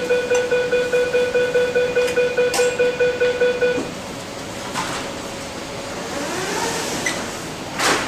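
Hong Kong MTR train's door-closing warning: a rapid electronic beeping, about five beeps a second, for about four seconds. Then the doors begin sliding shut, with a sharp knock near the end.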